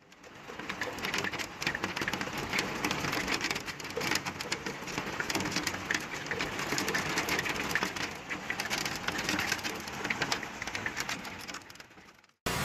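Hailstorm: hailstones pelting down in a dense, irregular patter of many small hard impacts over the steady noise of heavy rain.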